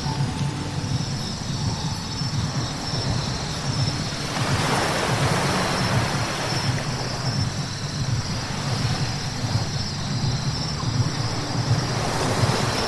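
Car driving on a wet road: a steady low rumble with the hiss of tyres on wet pavement, which swells about four seconds in and again near the end.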